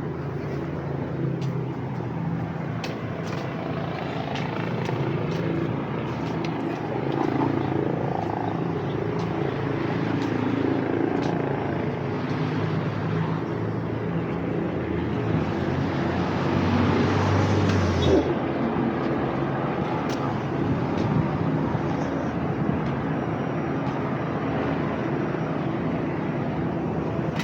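Vehicle engines running steadily in street noise; a louder engine swells and then cuts off abruptly about eighteen seconds in.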